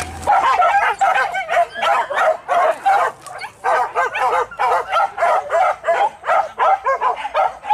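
Hunting dogs yelping and barking excitedly in a rapid, unbroken string of short calls, about four a second.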